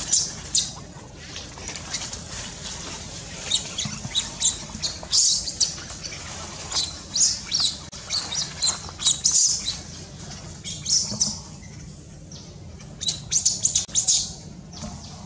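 Baby macaque squealing: many short, shrill cries in irregular bursts, with a brief lull before a last flurry near the end.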